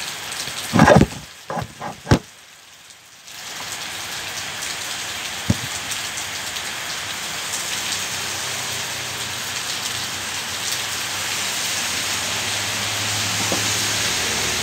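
Steady hiss of falling rain that slowly grows louder toward the end, with a few loud knocks about a second or two in.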